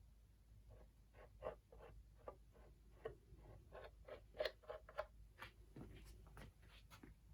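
Faint, quick, irregular scraping strokes, a couple of dozen of them starting about a second in, from hands working epoxy on the rocket's cardboard airframe and fin can.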